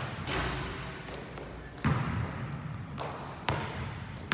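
Basketball bouncing on a hardwood gym floor, a few sharp bounces spaced well apart, each echoing through the large hall. A short high sneaker squeak comes near the end.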